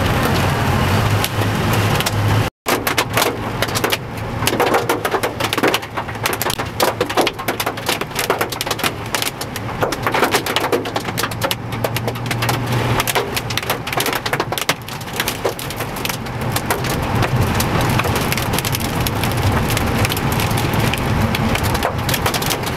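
Heavy rain and hail pelting the car's roof and windshield, heard from inside the car as a dense, continuous clatter. The car's engine hums steadily underneath. Sound drops out briefly a couple of seconds in.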